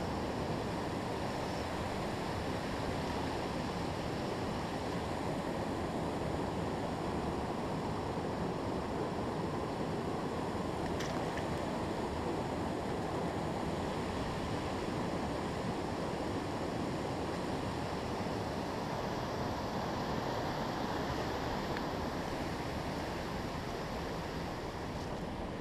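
Steady rush of flowing river water, an even noise that holds at one level throughout.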